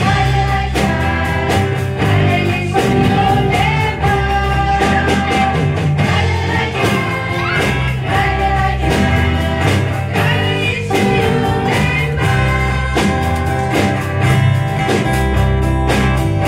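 A small vocal group singing a praise song together into microphones, over instrumental accompaniment with a steady drum beat.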